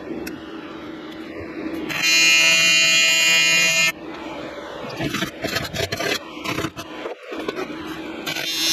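AC TIG welding arc on aluminum, buzzing steadily for about two seconds from about two seconds in, then again briefly near the end. Scattered clicks and taps fall between the two runs of the arc.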